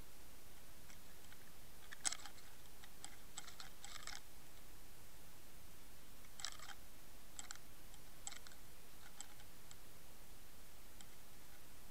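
Faint, irregular clusters of short clicks and ticks over a steady hiss, recorded underwater.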